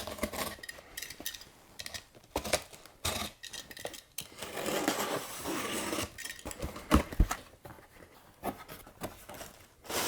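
A shipping box and its packaging being opened and handled by hand: scattered knocks and clicks, a longer rustling stretch midway, then two sharp knocks.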